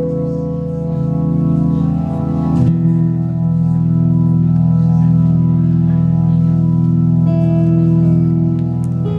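Instrumental introduction to a song: sustained, organ-like keyboard chords held steadily, changing to a new chord about three seconds in and again near the end.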